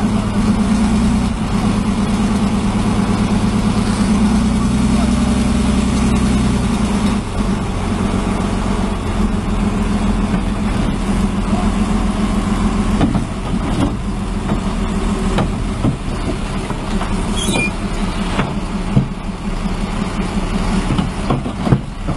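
A heavy diesel engine running steadily, loudest in the first seven seconds and then a little lower. There are scattered knocks in the second half and voices in the background.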